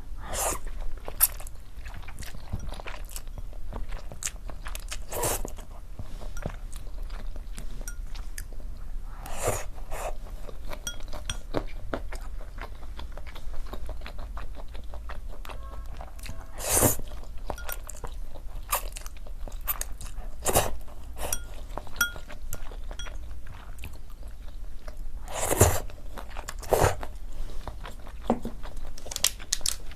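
Close-miked eating: biting and chewing food, with a loud crunch every few seconds amid softer wet chewing clicks.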